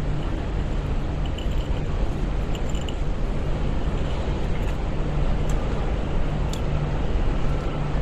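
Steady city street ambience: a low rumble of traffic and background noise, with a couple of faint clicks about five and six and a half seconds in.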